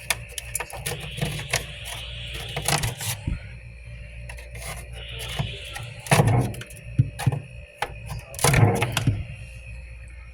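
Frost buildup being scraped off a humidifier: irregular scrapes and clicks, with two longer, louder scrapes about six and eight-and-a-half seconds in, over a steady hum.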